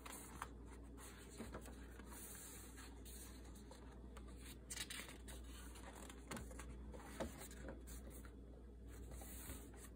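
Thick pages of a colouring book turned and smoothed by hand: faint, soft paper rustles and brushes, a few seconds apart.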